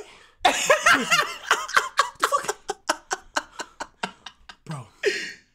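A man laughing hard: an opening shout, then a long run of quick 'ha' bursts, about four a second, tailing off, with one more burst near the end.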